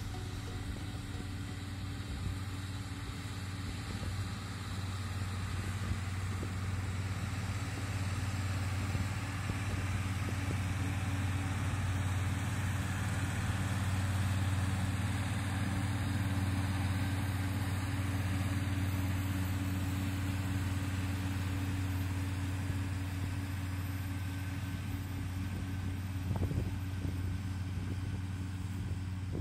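Diesel tractor engine running steadily with a low drone that swells slightly toward the middle. There is a brief sharp knock near the end.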